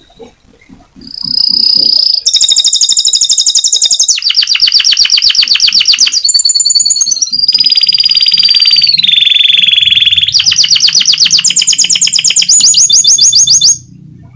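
Domestic canary singing loudly in fast trills and rolls, broken by a few long high whistled notes that slide down in pitch. The song starts about a second in and stops abruptly near the end.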